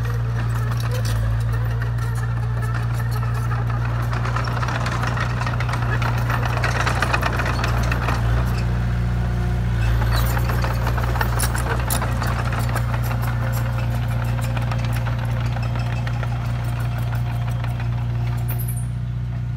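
Komatsu D20A small crawler bulldozer's diesel engine running steadily with a deep hum, with a clicking rattle of its steel tracks as it pushes soil.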